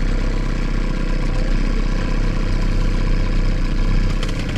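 A boat's outboard motor running steadily at low speed.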